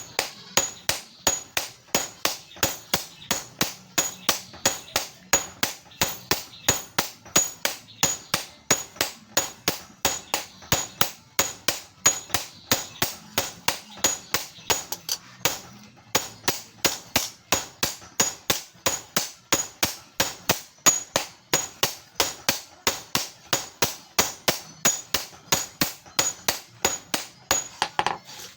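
Hand hammer striking metal on an anvil in a steady forging rhythm, about three blows a second, each with a bright metallic ring, with a brief pause about halfway through.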